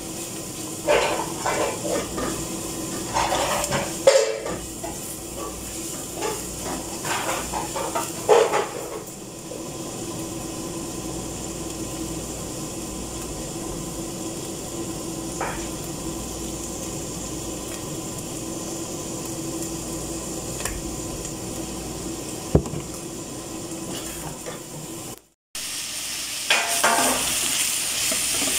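Carrot and vegetable strips with chicken frying in oil in a stainless steel pot, with a steady sizzle. A utensil stirs and clatters against the pot in spells during the first several seconds and again near the end, after a brief cut-out of the sound.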